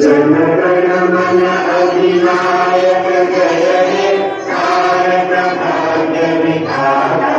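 A large group of schoolchildren chanting a prayer together in unison, with held, sung notes. The phrases break briefly about four seconds in and again near the end.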